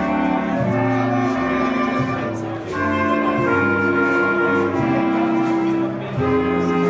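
Clarinet ensemble playing a slow swing ballad live, in sustained chords that shift every second or so, over faint, evenly spaced cymbal ticks from a drum kit.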